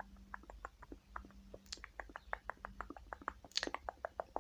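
Beauty blender makeup sponge tapped quickly against the microphone in ASMR style, blending in foundation: a fast run of soft taps, about six a second, with a couple of sharper, brighter ones.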